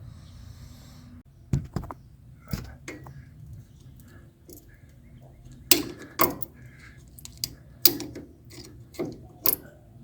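Plastic trim removal tool prying at a plastic push-pin retaining clip on a truck's upper control arm: irregular sharp clicks and taps, about eight, some seconds apart.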